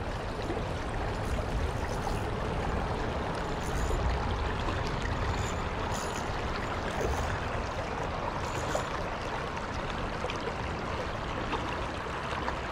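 Steady rush of a shallow, rocky stream flowing over stones, with a few faint clicks over it.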